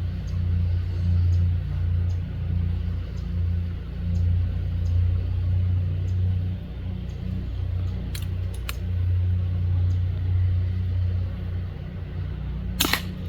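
Steady low engine hum, like an idling motor vehicle, with a few sharp clicks partway through and one louder sharp crack near the end.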